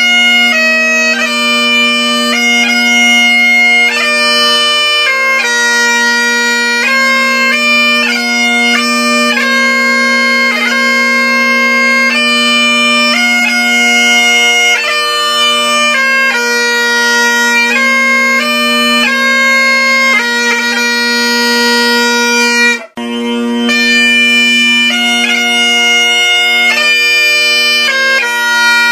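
Great Highland bagpipes playing a tune: the drones hold one steady note beneath the chanter's melody. The sound cuts out abruptly for a moment about 23 seconds in, then the pipes carry on.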